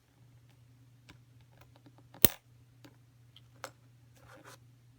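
Small plastic and metal parts of a mechanical pencil being handled: a few light clicks and one sharp click about two seconds in.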